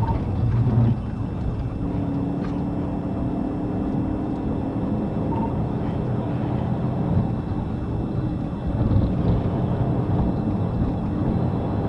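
Steady road, tyre, wind and engine noise of a police patrol car driving at about 80 to 95 mph, heard from inside the car.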